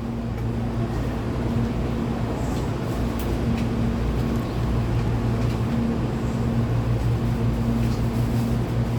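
Hankyu commuter train's onboard electrical equipment giving a steady low hum, with a slightly higher hum that cuts in and out every second or two. The pitch stays level, with no rising or falling inverter whine.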